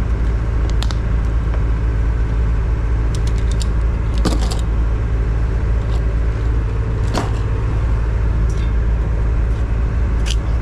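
Steady low rumble of an idling engine, with a few light clicks and clinks about a second in, around four and seven seconds in, and near the end.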